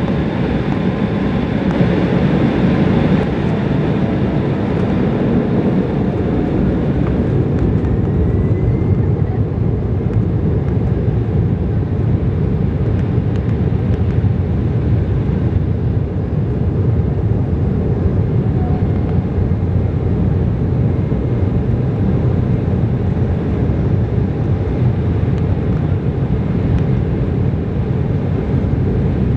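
Cabin noise over the wing of an Embraer 190 lining up and starting its takeoff roll: its GE CF34-10E turbofans run with a steady rumble and a rush of air. A faint rising whine comes about eight seconds in.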